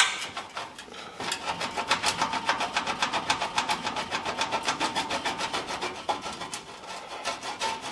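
Rapid rhythmic scraping or rasping strokes from hand-tool work on the exhaust parts, about seven or eight a second and fairly even. They start about a second in and keep on until near the end.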